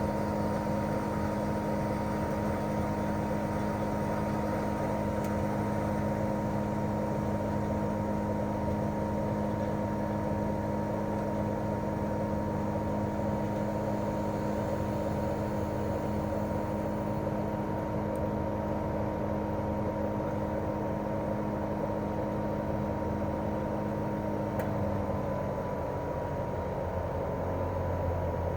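Daikin R28RMV inverter mini-split outdoor unit running in cooling mode: a steady fan rush with the even hum of its twin-cylinder swing compressor. About twenty-five seconds in, the compressor's hum slides down in pitch as the inverter slows it.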